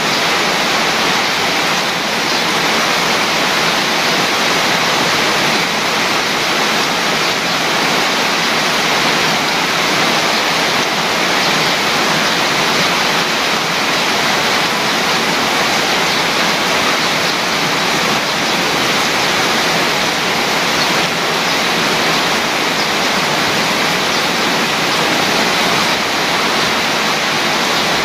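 Heavy rain pouring down steadily on garden foliage: a dense, even hiss with no single drops standing out.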